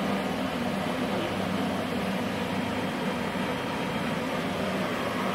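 Steady whirring hum of running machinery, without change.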